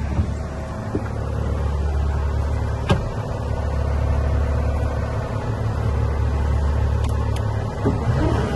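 Cat diesel engine of a Cat 299D2 compact track loader idling steadily, with a few sharp clicks over it, the loudest about three seconds in.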